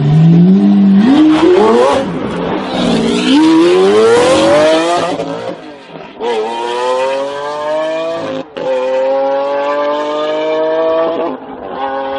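Lamborghini Aventador's V12 revving hard as the car pulls away and accelerates, its pitch climbing steeply, then shifting up through the gears: the sound breaks and drops briefly about six, eight and a half and eleven seconds in, each time climbing again more slowly.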